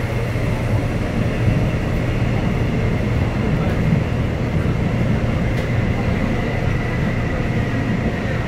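Interior running noise of a Busan Metro Line 1 subway car under way between stations: a steady low rumble from wheels and car body, with a faint constant high whine.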